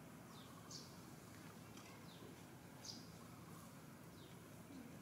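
Near-silent outdoor background with several faint, short, high chirps, each falling in pitch, from a small bird.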